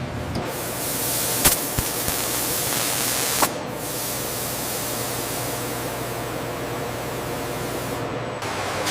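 Steady hissing noise with two sharp clicks, about a second and a half in and again two seconds later; the hiss is a little quieter after the second click.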